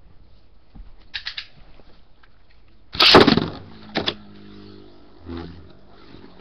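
A Beyblade top launched from its ripcord launcher: a few quick clicks, then a loud sudden rip and clatter about three seconds in as it is launched into the stadium. It then spins with a faint steady whir and a sharp knock a second later.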